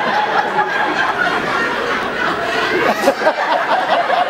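A large audience laughing, many voices at once, holding a steady level.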